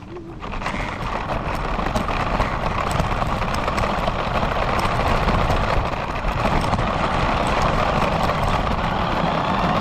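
Radio-controlled car driving: a steady rush of its motor, drivetrain and tyres rolling on the road, heard up close from a camera mounted on the car. It picks up about half a second in and keeps going with small clicks and rattles.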